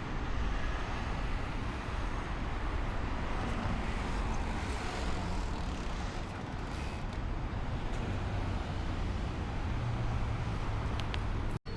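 Steady city street traffic noise, an even rush of passing vehicles, cut off abruptly for an instant near the end.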